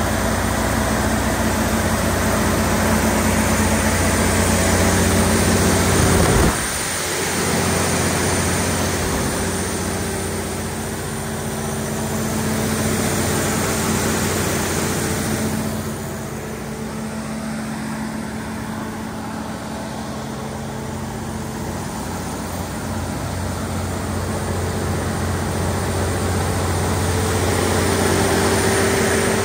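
Cummins NTA-855-G3 turbocharged inline-six diesel engine of a 350 kW standby generator set running steadily at its governed 1800 rpm, a constant low hum with a brief knock about six seconds in.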